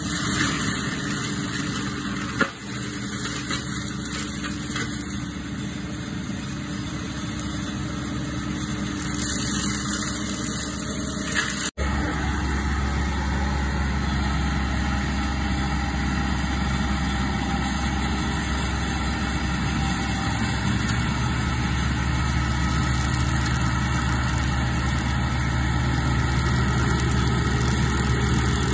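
Seppi RC 50 remote-controlled tracked mulcher running, its 50 hp diesel engine and mulching rotor working steadily through brush and deadfall. The sound breaks off abruptly a little before halfway and comes back as a steadier, deeper engine drone.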